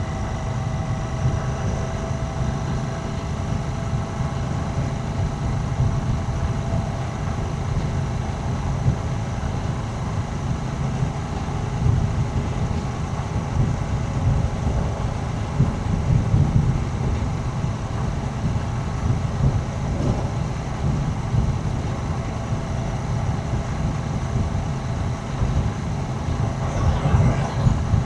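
Royal Enfield Shotgun 650's parallel-twin engine and exhaust running steadily under way, heard from on the motorcycle.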